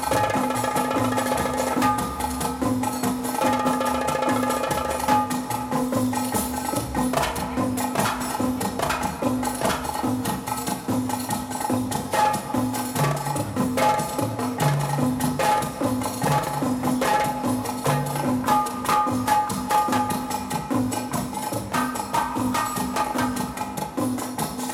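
Recorded Middle Eastern drum music for a belly-dance drum solo: fast, dense hand-drum strokes over a steady low drone, with a melody line in places.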